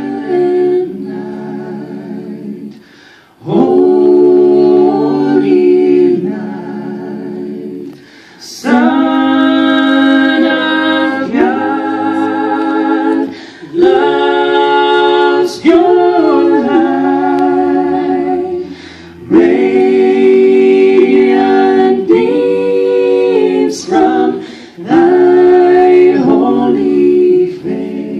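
A small mixed a cappella group, a woman and four men, singing unaccompanied in close harmony. The chords are held in phrases of about five seconds, each followed by a brief pause.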